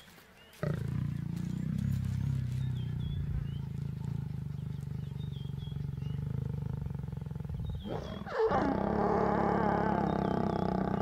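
Lions growling while mating: a low, steady rumbling growl, then about eight seconds in a louder growl as the lioness snarls.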